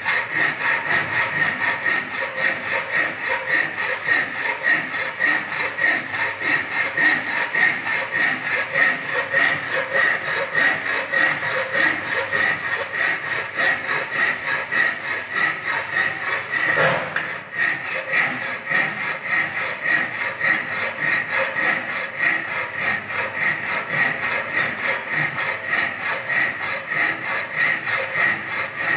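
Flat file scraping back and forth across the edge of a mild steel strip clamped in a bench vise, in steady repeated strokes. The filing shapes the hacksawn edge into a groove for a butt weld. The strokes break off briefly a little past halfway.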